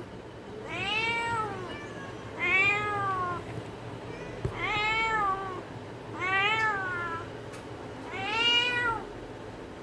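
A cat meowing five times at intervals of a second and a half to two seconds, each meow rising and then falling in pitch.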